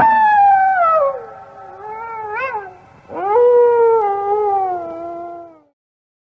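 A canine howling: two long, falling howls, the second starting about three seconds in.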